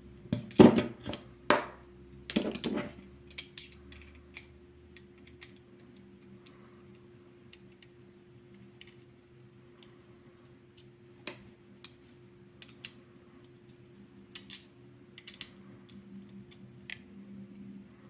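Metal-on-metal clicks and clatter from handling a Leatherman Charge multitool and Torx screwdrivers during disassembly: a run of loud clacks in the first three seconds, then scattered light clicks.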